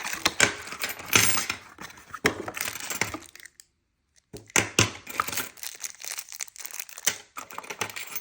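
Plastic packaging crinkling and rustling with small metal parts clicking and clinking as bagged door-lock hardware (screws, keys) is handled, in irregular bursts with a brief silence about three and a half seconds in.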